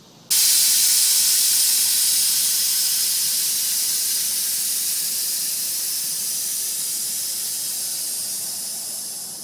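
Quarter-inch electronic air-ride valves venting the rear air bags of a mini truck: a loud hiss of escaping air that starts abruptly and slowly fades over about nine seconds as the suspension lowers from full lift all the way down.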